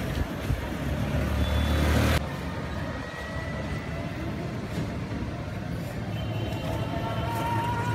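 Road rumble and street traffic noise from riding in an e-rickshaw, cut off abruptly about two seconds in. After that comes quieter street ambience with faint steady tones, clearer near the end.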